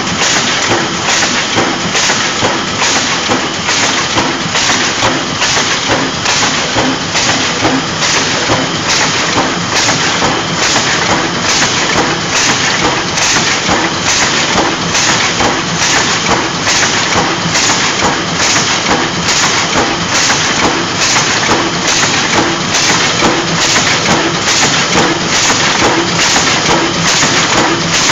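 Automatic sheet feeder of a pneumatic die-cutting machine running, taking corrugated board sheets off the stack one after another: a loud, continuous mechanical clatter with an even, quick rhythm.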